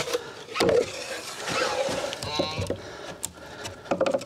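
Plywood being handled and shifted into place: wooden scraping and rubbing with several sharp knocks, as a thin plywood spacer is pushed in under a propped sheet. A short creak comes about halfway through.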